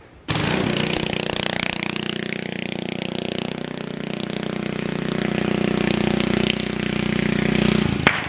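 Coleman CT200U-EX minibike's small single-cylinder engine running steadily, now driving through a newly fitted torque converter. It comes in abruptly, grows slightly louder toward the end, and stops with a sharp click near the end.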